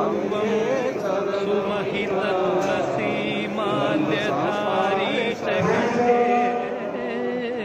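Large crowd of Ayyappa pilgrims chanting together, many voices overlapping, with some notes held long in the second half.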